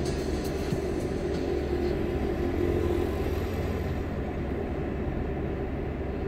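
Steady engine and road rumble of a moving car, heard from inside the cabin.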